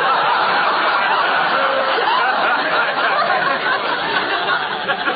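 Studio audience laughing in a long, steady wave after a punchline, easing slightly near the end, heard through an old, narrow-band radio broadcast recording.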